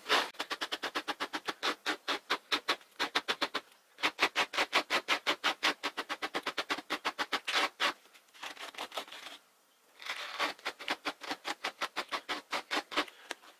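Dog slicker brush raking quickly through strands of acrylic yarn, brushing them out into faux fur: rapid scratchy strokes about five or six a second, in runs broken by a few short pauses.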